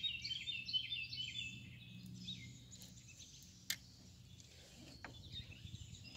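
A songbird singing a quick run of repeated down-slurred chirps over the first two seconds, over faint steady outdoor background noise. A single sharp click sounds a little past the middle.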